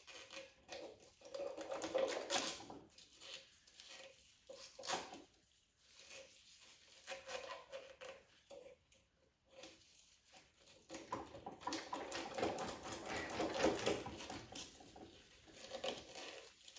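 Irregular scraping, rustling and clicking as tangled rope, old fishing line and tape are worked loose from around a push mower's blade shaft, with a quieter stretch in the middle.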